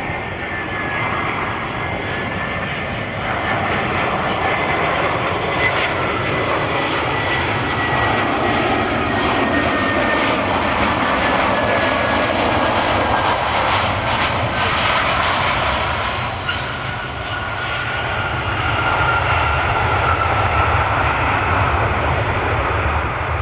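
Jet airliner engines on landing approach: a loud, continuous rushing noise with a thin high whine that slowly falls in pitch as the aircraft passes.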